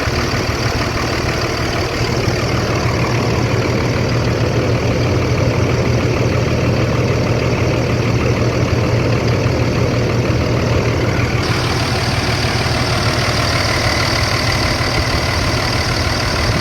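Cummins diesel engine idling steadily, very smooth for a diesel with about 200,000 miles on it, after an oil change with anti-friction additive. About two-thirds of the way through, a higher hiss comes up over the running engine.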